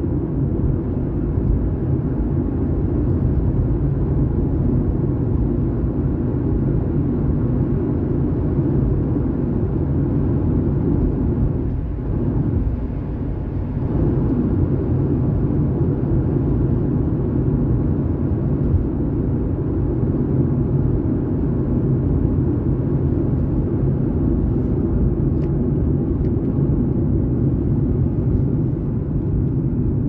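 Steady road and engine noise heard inside a moving car, a low rumble that dips briefly about twelve seconds in.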